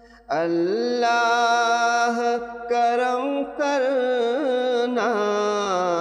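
A man's solo voice singing an Urdu devotional nazm in long, drawn-out notes with wavering ornaments. There are short breaths between phrases about two and a half, three and a half, and five seconds in.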